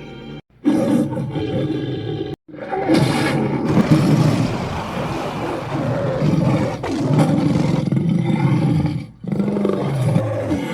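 Dragon roar sound effects: a short roar about half a second in, cut off abruptly, then a long rough roar lasting several seconds, and another roar starting after a brief dip near the end.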